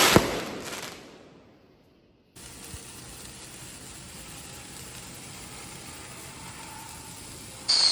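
A firework bang right at the start that dies away over about two seconds. Then a steady hiss, and just before the end a loud whistling firework with a falling pitch.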